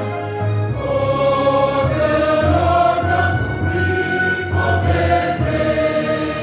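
A mixed church choir singing a hymn in parts, holding long notes over a steady low bass line.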